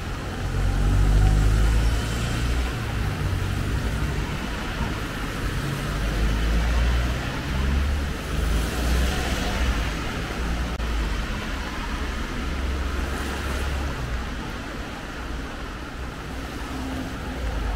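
Road traffic on a wet city street: cars passing with tyre hiss over a continuous low rumble, the loudest pass about halfway through.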